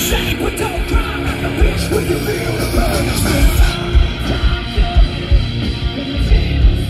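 Rock band playing live through a big sound system: electric guitars, bass and drums with a steady low thump of kick drum. The bright, hissy top of the mix drops away a little over halfway through.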